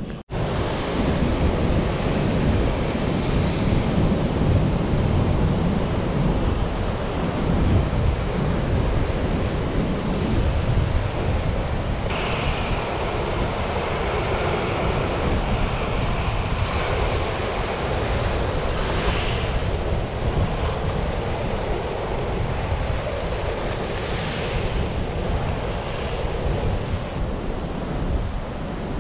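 Strong wind buffeting the microphone, a steady rushing noise that changes character about twelve seconds in.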